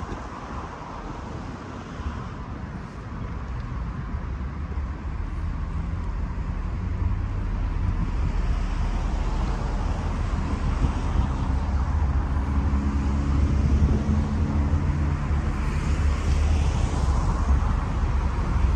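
Road traffic with a large engine's low hum growing steadily louder, from about six seconds in, as it draws near.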